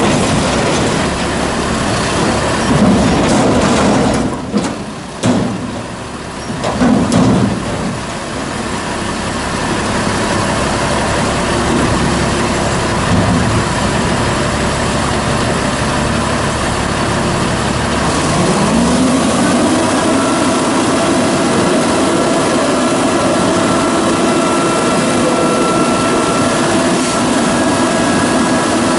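Peterbilt 310 garbage truck's diesel engine running hard to drive the Amrep front loader's hydraulics as the arms dump a dumpster over the cab and lower it, with a few knocks of the container about four to seven seconds in. Later the pitch rises and then holds as a steady run.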